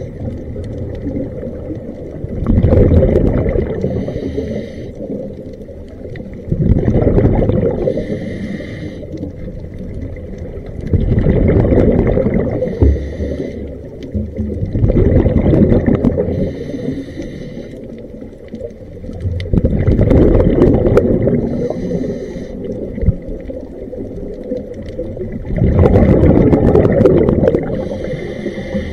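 Scuba diver breathing through a regulator underwater: a hissing inhale, then a loud rush of exhaled bubbles, about one breath every four to five seconds.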